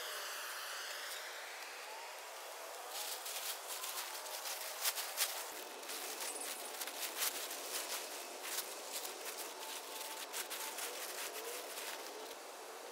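Plastic tarp crinkling and rustling as it is pulled down and folded on leaf litter: a dense run of sharp crackles from about three seconds in until near the end.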